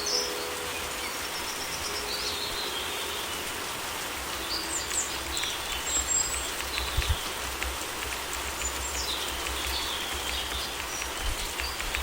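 Steady summer rain with several songbirds chirping and whistling over it. The last piano note dies away right at the start, and faint drop-like ticks patter in near the end.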